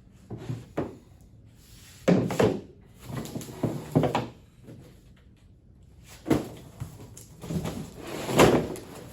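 Large plastic tool-cart parts being handled and set down while unboxed: a series of separate knocks, thumps and short scrapes with pauses between them.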